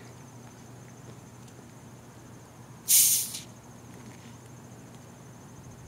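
Short sharp hiss of carbonation escaping from a 2-litre plastic root beer bottle as its cap is cracked open, about three seconds in.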